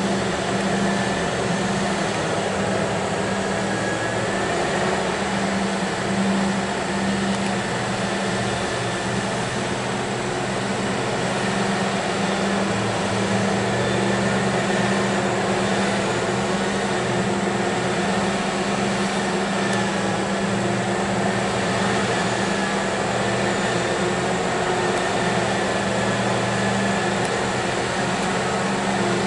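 Liebherr R 996 mining excavator running under load as it loads a haul truck: a steady, deep machinery drone, with a faint, slightly wavering high whine on top.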